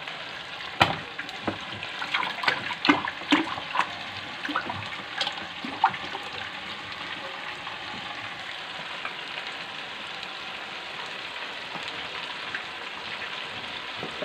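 Chicken drumsticks deep-frying in hot oil in an electric deep fryer's basket: a steady sizzle. In the first six seconds a run of short knocks and clatters, the loudest about a second in.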